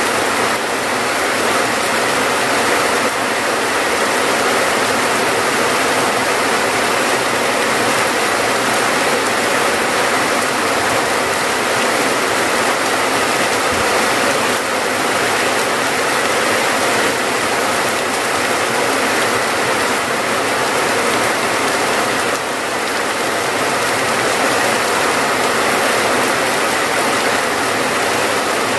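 Steady rain falling, a dense even hiss with fine crackling.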